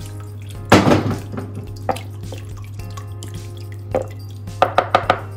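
Roasting juices dripping from a plastic sieve of roasted vegetables into a pot. There is a sharp knock about a second in, and a quick run of taps and scrapes from a spatula pressing the vegetables in the sieve near the end.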